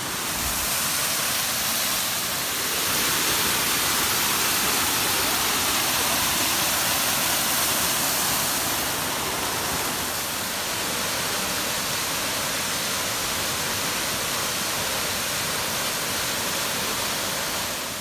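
Steady rush of a rocky stream's water pouring over stones, loud and even, swelling slightly over the first few seconds.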